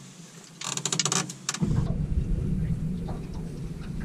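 A short rapid run of clicks about half a second in, then from under two seconds in a steady low rumble of wind buffeting the microphone.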